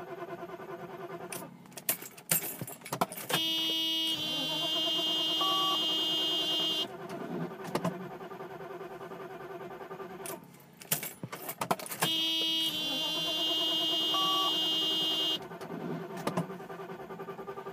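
Mercedes E420's 4.2-litre V8 being started twice: key clicks, then the starter cranks for about three and a half seconds before the engine catches and runs, the same sequence repeating about nine seconds later. The long cranking is a hard start, which the owner traced to a 1992 LH fuel-injection control module fitted in place of the original.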